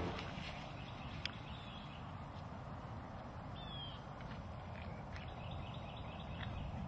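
Faint outdoor background hiss with a few short bird chirps, one of them a falling chirp about halfway through, and a single sharp click a little over a second in.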